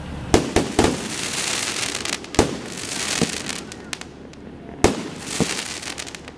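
Fireworks going off: three sharp bangs in quick succession near the start, another about two and a half seconds in, and more about five seconds in. A hissing crackle fills the gaps between the bangs.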